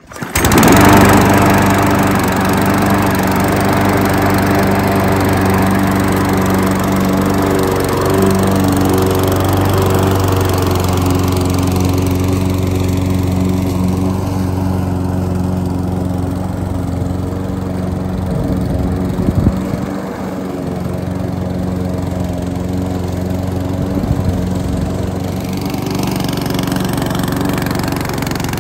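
Huter GLM-6.0 SP lawn mower's four-stroke petrol engine catching at once on a pull of the cord, then running steadily.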